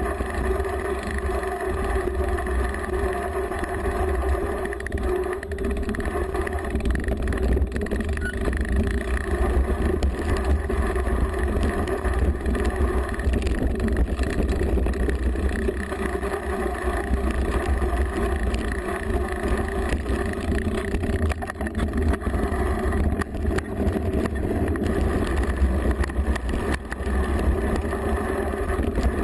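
Steady low rumble and rattle picked up by a bike-mounted GoPro while a mountain bike rides downhill over rough trail: tyre and frame vibration with wind on the microphone, plus scattered small knocks.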